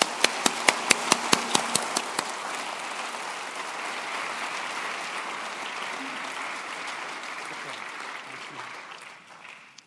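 Audience applauding. Over the first two seconds one person's sharp claps, about five a second, stand out close to the microphone. The applause fades away near the end.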